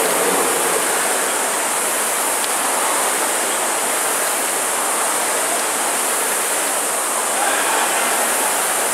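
Many air-resistance rowing ergometers running together during a race: their flywheel fans whooshing, blended into one steady rushing noise.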